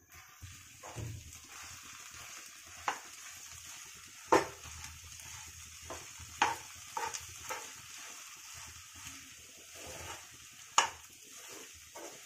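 A metal spoon stirs and breaks up crumbled idli in a kadai on the stove, over a steady sizzling hiss. The spoon knocks sharply against the pan now and then, loudest about four seconds in and again near the end.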